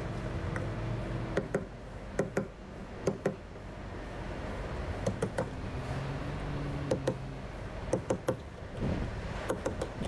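A hammer tapping on the metal of a Putzmeister concrete pump's water pump during repair. The taps are irregular and come in twos and threes, each ringing briefly, over a steady low machinery hum.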